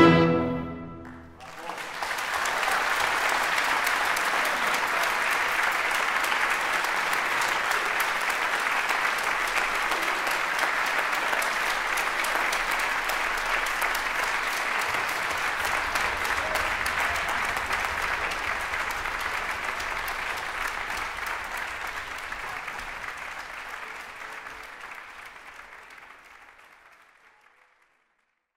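The last chord of violin and orchestra stops about a second in, and a concert audience breaks into applause. The clapping is steady and then fades out near the end.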